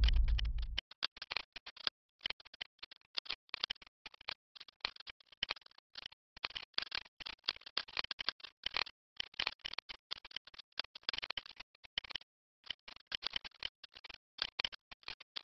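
A stylus scratching across a drawing tablet in many short, irregular strokes with brief pauses between them. A loud low boom dies away in the first second.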